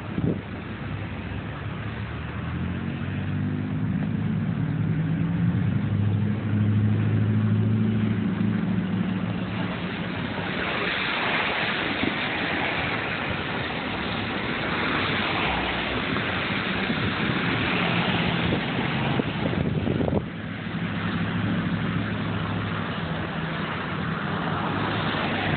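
Road vehicles: an engine hum that rises in pitch over the first several seconds, then a louder, even rushing noise of passing traffic from about ten seconds in, and an engine hum again near the end.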